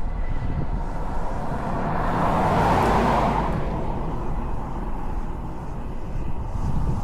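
Outdoor ambience with a steady low rumble, and a vehicle passing by, swelling up and fading away about two to three seconds in.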